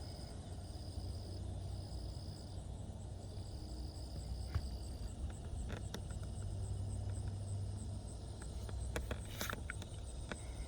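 Insects calling: a high, steady buzzing trill that starts and stops in several stretches over the first five seconds, over a fainter continuous high pulsing trill. A low rumble runs underneath, and a few sharp clicks come in the second half.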